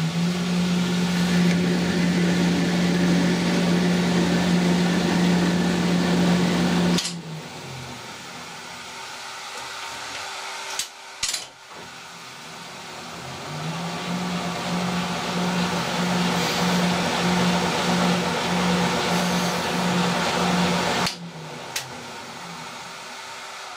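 Old Colchester lathe running under power while cutting a metric thread, with a steady whine. The whine drops after about seven seconds and a couple of sharp clicks follow. It builds up again a few seconds later and cuts off sharply near the end.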